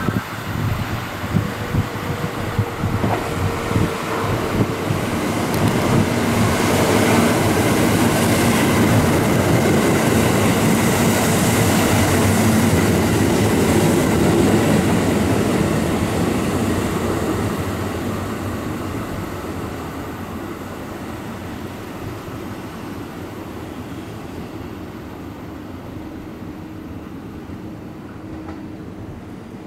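Kintetsu Aozora II charter train running through a station at speed: clicks of wheels over rail joints at first, then the rush of the train passing close, loudest midway and fading as it goes. A steady low hum comes in near the end.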